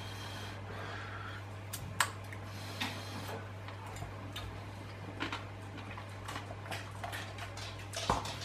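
Eating from an instant pasta pot: a metal spoon clicking and scraping against the pot, and chewing of pasta that still has crunchy bits. A handful of sharp clicks, the loudest about two seconds in, over a steady low hum.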